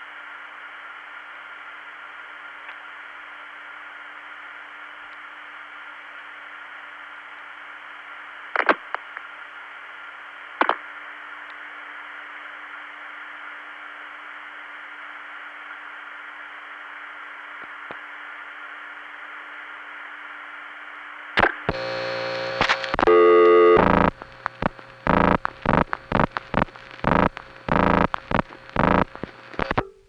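Analog long-distance telephone line: steady hiss with a low steady tone under it, and two sharp clicks about 9 and 11 seconds in. About 21 seconds in the line clicks over to loud signalling tones, then a rapid run of sharp pulses about two a second as the next call is set up.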